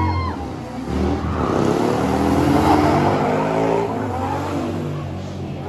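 Stunt car engines revving on the track, rising in pitch and then easing off, growing quieter over the last second or two.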